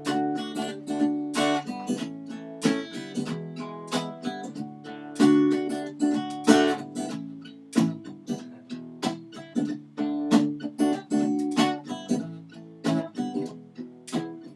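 Acoustic guitar strummed in steady chords, an instrumental passage of a song.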